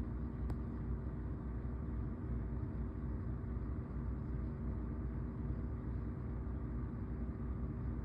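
Steady low hum and rumble, even throughout, with a faint click about half a second in.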